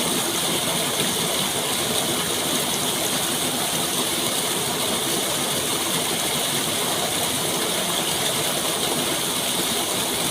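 Steady rushing water, an even unbroken hiss with no changes.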